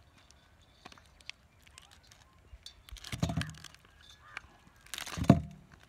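Crackling and small clicks of a large prawn's shell and head being pulled apart by hand, with two louder, low-pitched sounds, one about three seconds in and one near the end.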